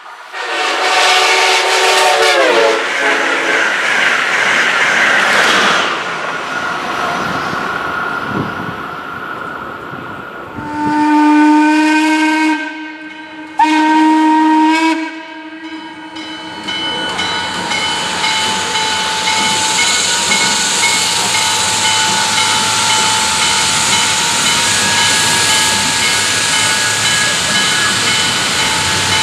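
Chime whistle of Chesapeake & Ohio 2-6-6-2 steam locomotive 1309: a first blast whose pitch sags as it ends, then two shorter blasts about ten seconds later. Loud steam hissing fills the gaps and runs on steadily after the last blast.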